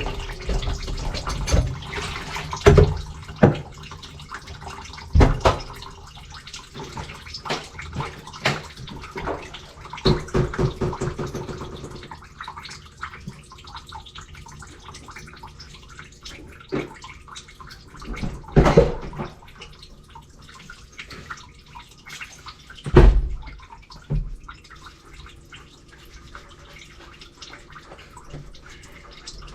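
Water sloshing and splashing in a backed-up kitchen sink, with many sharp knocks and clanks as pipes and tools are handled and several louder thumps spread through.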